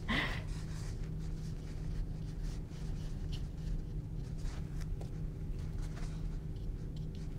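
A small paintbrush stroking acrylic paint onto canvas: faint, short brushing sounds over a steady low hum.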